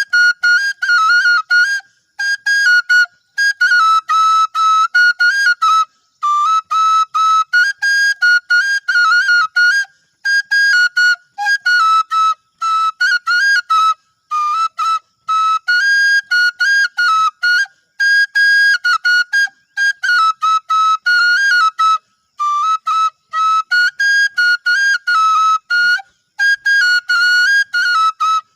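Bansuri (Indian bamboo flute) playing a high, repeating melody in short phrases, with brief breaks between them.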